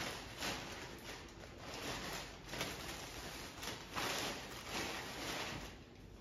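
Clear plastic bag crinkling and rustling in irregular bursts as the clothes in it are handled and pushed into a duffel bag, going quieter near the end.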